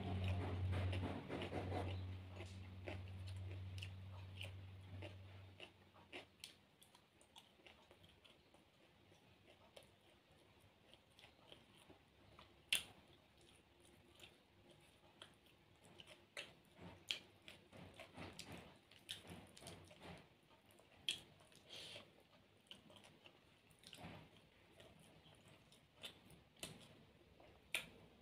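Close-up mouth sounds of a person eating a rice meal by hand: soft chewing, lip smacks and small wet clicks at irregular intervals, with one sharper click just before the middle. A low steady hum runs under the first few seconds and then stops.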